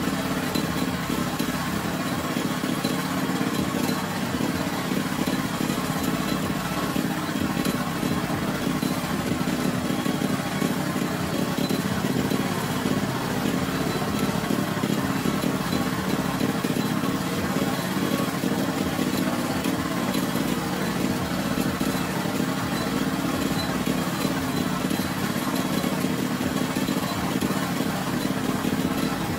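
Small engine running steadily at one constant speed, with an even low hum.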